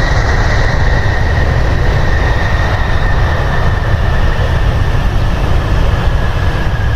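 A large vehicle running loud and close: a deep rumble with a steady high whine above it that drifts slightly down in pitch.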